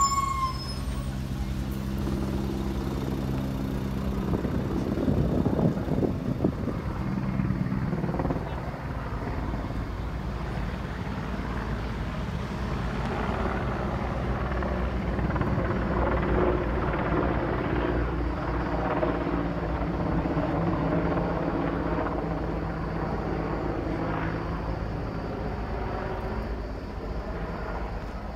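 A helicopter flying, a steady engine-and-rotor drone.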